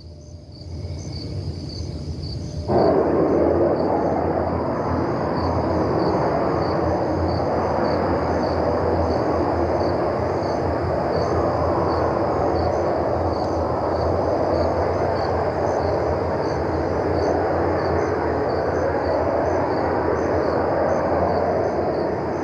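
A loud, steady roar, which the man calls the sky roaring, comes in suddenly about three seconds in and holds on. Crickets chirp steadily underneath.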